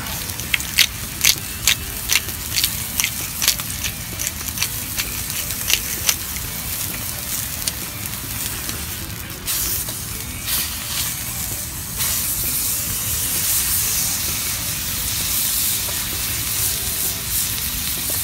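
Beef steaks frying in a frying pan over a wood fire: a steady sizzle with sharp spattering pops through the first six seconds. The sizzle turns louder at about ten and again at twelve seconds in, as the steaks are turned onto their raw sides.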